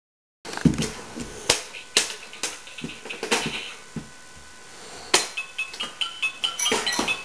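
Half a second of silence, then a string of sharp knocks and taps in a small room. Short stepped electronic tones, like a toy's melody, start near the end.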